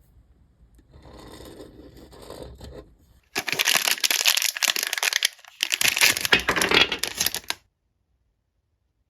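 Packaging being opened: a soft rustle, then two loud bouts of crinkling and tearing, each about two seconds long, with a short pause between them.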